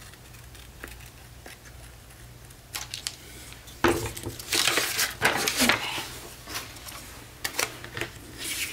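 Paper rustling and crinkling as a printed paper sheet and a cut-out paper heart are handled and moved about. It is quiet at first and loudest a few seconds in, with a few light taps near the end, over a faint steady low hum.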